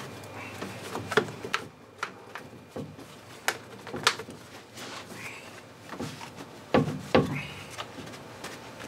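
Scattered clicks and knocks of gloved hands handling and wiping down a small outboard motor with a rag, the motor not running; the loudest are two knocks close together about seven seconds in.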